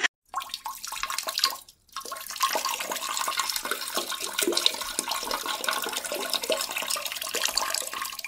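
Water rushing and splashing in a toilet bowl, starting about two seconds in: a steady watery noise full of small crackling drops.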